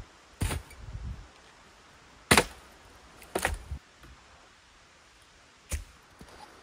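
Firewood logs pulled off an SUV roof rack and thrown down, landing with four sharp wooden knocks spread over several seconds.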